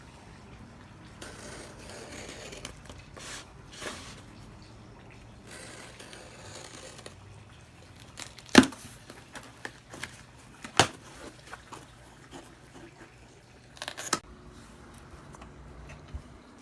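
Hands tearing open a shipping package, with rustling and ripping of the packaging. A few sharp snaps or knocks stand out, the loudest about eight and a half seconds in, another near eleven seconds and a short cluster near fourteen seconds.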